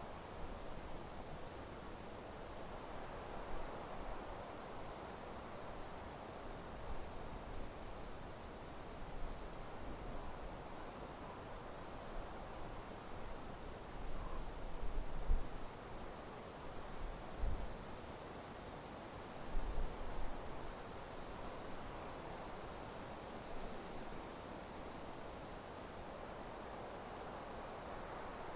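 Steady high-pitched chirring of insects in a natural outdoor ambience, with a few brief low rumbles around the middle.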